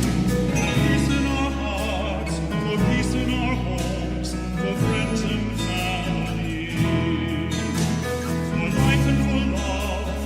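Choir singing a hymn over sustained accompanying chords, the deep bass notes changing every couple of seconds.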